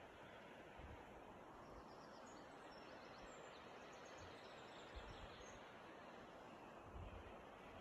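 Faint, steady rushing of a river flowing over stones, with a few faint high bird chirps in the middle and a few low bumps.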